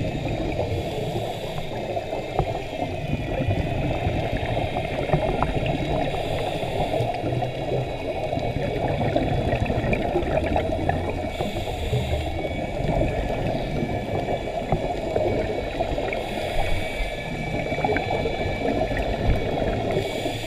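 Underwater sound of a scuba dive picked up through a camera housing: a steady crackling hiss of the sea with a faint wavering whine above it, and the regulator's breathing hiss coming back about every five seconds.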